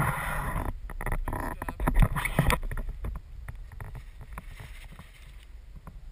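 Skis swishing and scraping through powder snow, with many sharp knocks. It is loudest for the first two and a half seconds, then settles to a quieter, steady rush.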